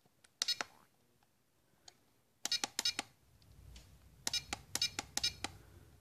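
Radiolink RC4G transmitter keys pressed to scroll through its menu, each press giving a short electronic beep: one about half a second in, a quick run of three or four around the middle, and another run of four or five near the end.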